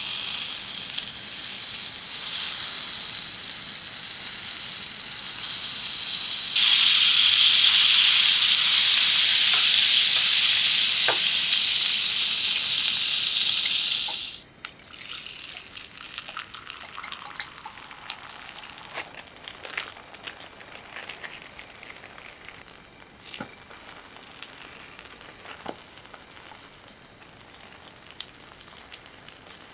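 Butter sizzling in a hot nonstick frying pan, then a much louder, steady sizzle of beaten egg frying from about seven seconds in. It cuts off suddenly about halfway, leaving quieter crackling and scattered pops as the egg sets.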